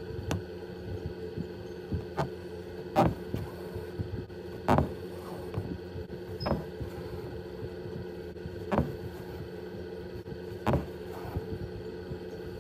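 Embroidery needle piercing stretched fabric with a soft tap every second or two, thread drawn through between taps, over a steady low hum.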